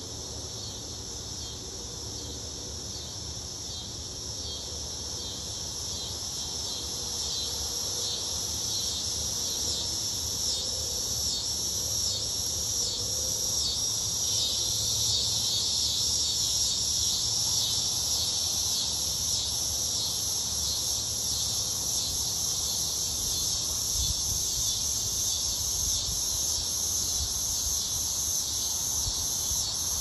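A chorus of cicadas singing: a steady, high-pitched buzzing drone that swells louder over the first fifteen seconds or so.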